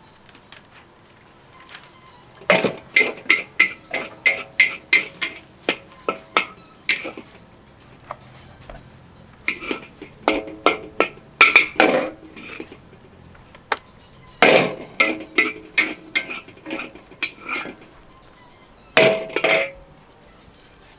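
Metal spatula clanging against a wok while mee goreng is stir-fried: four bursts of quick ringing strikes, several a second, with short pauses between.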